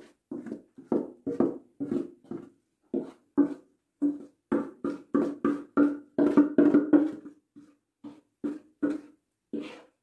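A wooden spoon knocking and scraping in a mixing bowl as thick cake batter is poured out into a cake pan: a run of irregular knocks, two or three a second, each with a short ring, busiest in the middle.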